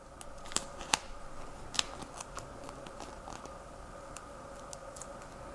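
Duct tape being wrapped and pressed around a pencil crayon by hand: scattered small crinkles and clicks, the sharpest about half a second and a second in.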